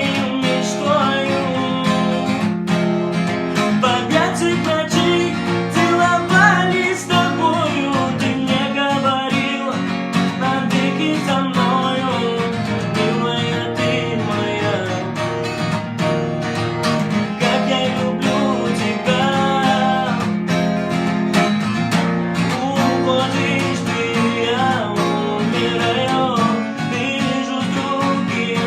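Music: a song with acoustic guitar, plucked and strummed, and a melodic singing voice.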